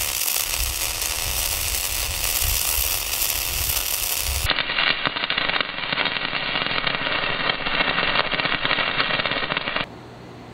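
MIG welding arc crackling and sputtering steadily as a bead is laid along a steel seam. The crackle changes character abruptly about four and a half seconds in. It stops shortly before the end, leaving a faint steady hiss.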